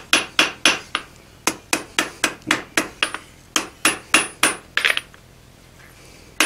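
Hand hammer striking a hot steel drawknife blade on an anvil in quick, even blows of about four a second, each with a short metallic ring. These are smoothing and straightening blows on the bevel at a low heat. The hammering pauses about five seconds in and picks up again at the very end.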